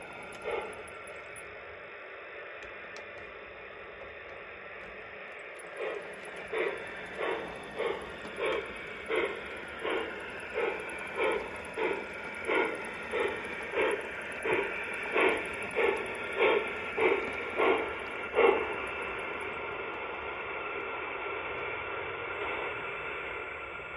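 Aristocraft Mikado G-scale model steam locomotive's sound system hissing steadily. About six seconds in, steam-exhaust chuffs start at roughly one and a half a second and keep an even beat for about twelve seconds, then stop, leaving the hiss.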